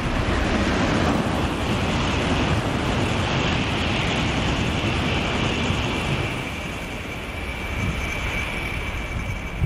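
An N700A Shinkansen train running through the station at high speed without stopping: a loud, steady rush of wheels on rail and air. A steady high whine comes through in the second half.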